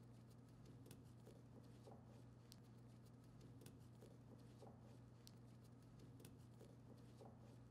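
Near silence: room tone with a steady low hum and faint, scattered light clicks.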